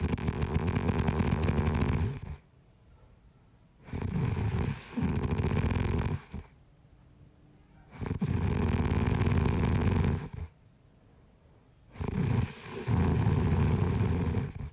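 A sleeping man snoring: four long snores about every four seconds, each lasting about two seconds, with quiet breaths between. The second and fourth snores break off briefly partway through.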